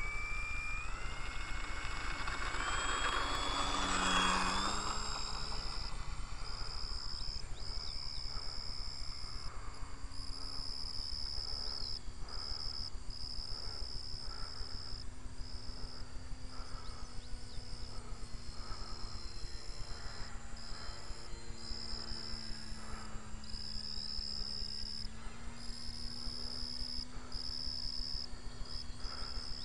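Motor and propeller of an 800 mm radio-controlled P-40 model plane whining at full throttle as it climbs out, rising in pitch and loudest about four seconds in, then dropping in pitch to a fainter drone that rises and falls as it circles overhead. A steady high buzz, broken every second or two, runs beneath.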